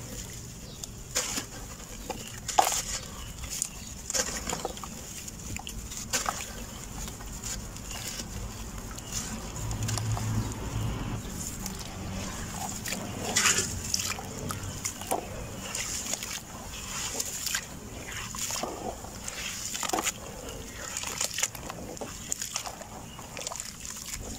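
Lumps of dry red dirt crumbling in hands over a basin of water: irregular soft crackles of breaking soil and falling grains, mixed with sloshing and splashing as the hands work the mud into the water.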